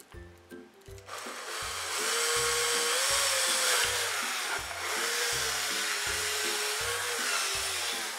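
Cordless drill running, boring into a cup, starting about a second in with a whine that wavers slightly in pitch. Background music with a steady beat plays underneath.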